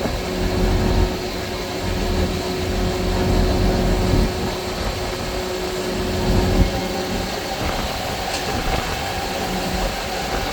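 Construction machinery running steadily, a low engine rumble with a constant hum, with a small knock about six and a half seconds in.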